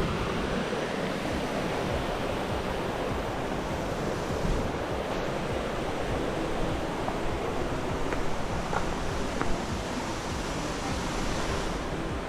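Steady rushing of a nearby waterfall, an even, unbroken wash of falling-water noise.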